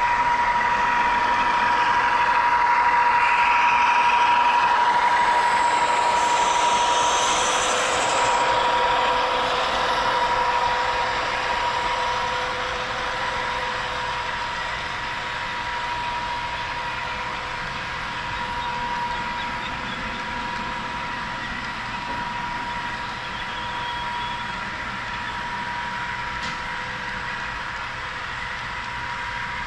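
HO scale model train running along the layout track: a steady rolling rattle with a high whine, fading slowly after the first several seconds.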